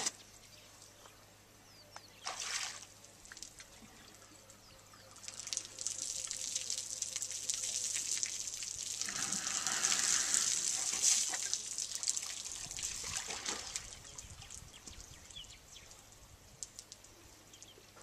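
African elephant drinking from a swimming pool: water trickling and pouring as the trunk draws it up and lifts it to the mouth. Mostly quiet for the first few seconds, then the water sounds build to their loudest about ten seconds in and die away.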